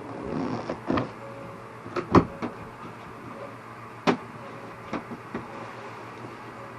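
A short rustle, then a series of separate knocks and clicks from handling the ATV's removed rear seat and plastic parts, the loudest a sharp knock about two seconds in.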